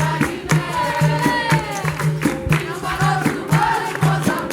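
Capoeira song: a group of voices singing over percussion with a steady beat, a low note repeating about twice a second.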